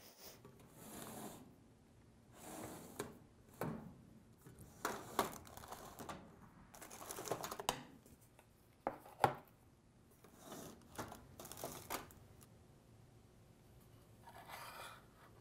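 Faint, irregular handling sounds: soft rustling swishes every second or two and scattered light taps and clicks. The sharpest are a couple of clicks around nine seconds in.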